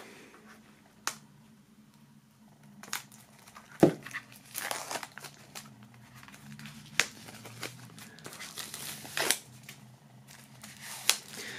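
Plastic shrink-wrap being peeled off a CD digipak and crinkled in the hands: irregular crinkles and small sharp clicks, the sharpest about four seconds in.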